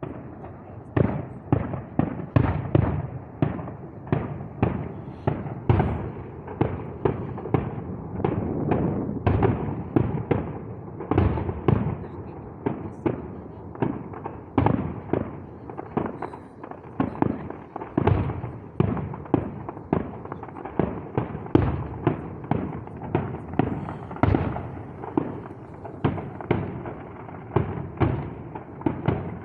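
Fireworks going off in a rapid, continuous series of bangs, about two or three a second, some louder than the rest.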